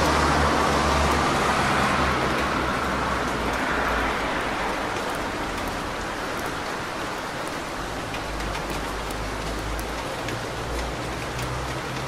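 Steady rain on a wet city street with car traffic. The hiss of tyres on wet road is loudest at the start and eases off. Scattered drops tick over a low engine rumble.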